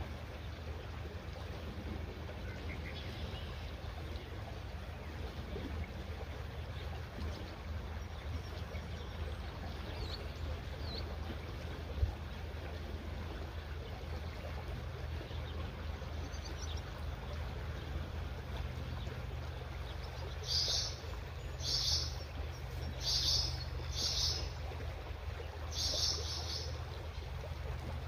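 Creekside ambience: a small creek trickling under a steady low wind rumble on the microphone, with a few faint bird chirps. In the latter part come about six short, high-pitched bursts, roughly a second apart.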